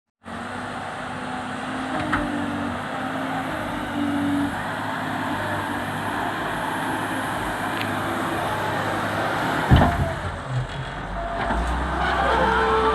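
Loader's diesel engine running with steady mechanical noise, with a sharp knock about ten seconds in and a deeper, low rumble after it.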